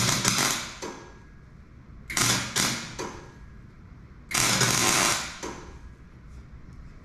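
Electric arc welding on a steel cylinder: three short crackling bursts of about a second each, the last a little longer, as tack welds are laid.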